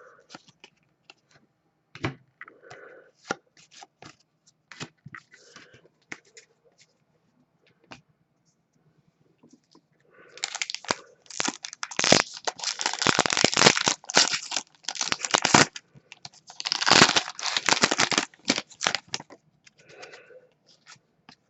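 Light clicks and rustles of cards being handled, then, about halfway in, a trading-card pack's foil wrapper being torn open and crinkled in two long crackling stretches.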